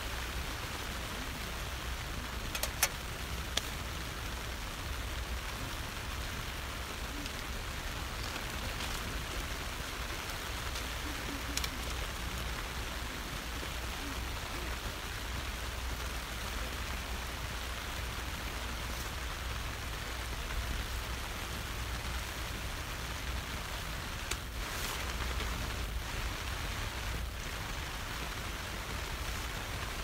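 Steady rain falling on the tent fly, heard from inside the tent. A few short sharp clicks stand out, two about three seconds in and another near the middle.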